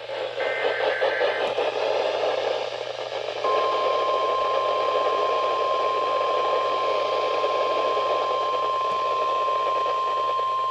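NOAA Weather Radio broadcast heard through radio static: a short burst of SAME digital header tones near the start, then about three and a half seconds in the steady single-pitch 1050 Hz warning alarm tone begins and holds, the signal that an alert is about to be read.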